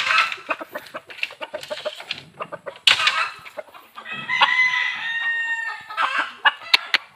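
Sharp knocks and clicks, then a rooster crows once, about two seconds long, starting about four seconds in.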